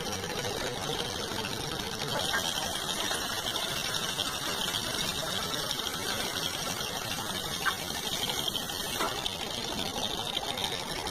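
Engine of a 1952 Ford 8N farm tractor, a four-cylinder side-valve petrol engine, running steadily while the tractor drags gravel.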